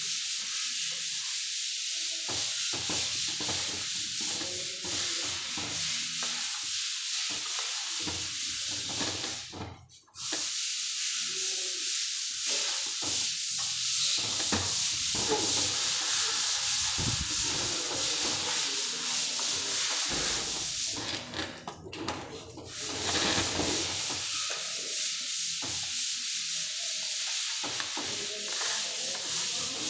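Metal trowel scraping and smoothing wet plaster of Paris on a ceiling: a steady, scratchy scraping that stops briefly twice, about ten seconds in and again past the twenty-second mark.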